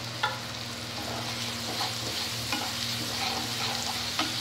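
A spice paste of chili, turmeric and cumin powder mixed with water sizzling in hot oil with fried onions, ginger and garlic, as a spatula stirs it around the pan, with a few light clicks of the spatula against the pan.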